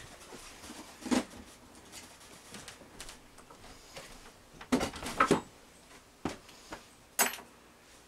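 A handful of short, scattered knocks and thuds of wooden boards and wall panelling being handled during wall tear-out: one a second in, a quick cluster of three around the middle, and one more near the end, with a quiet room between.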